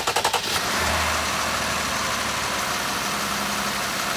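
A 2018 Jeep Grand Cherokee's 3.6-litre V6 finishes cranking on the starter, catches under a second in with a brief flare, and settles into a steady idle. This is the first start after a new fuel injector was fitted to cure a cylinder 5 misfire.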